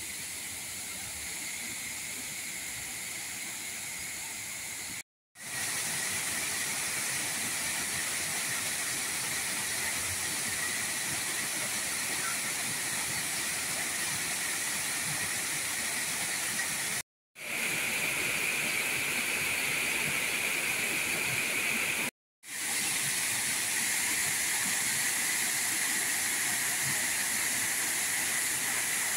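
Steady rush of water spilling over a dam's concrete weir. It is quieter for the first few seconds and louder after that, and the sound breaks off for a split second three times.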